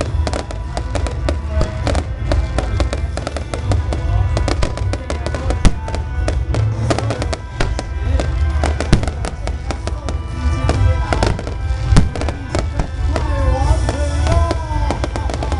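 A fireworks display going off: rapid, dense bangs and crackling over a continuous deep rumble of booms, with music playing at the same time. A voice joins in near the end.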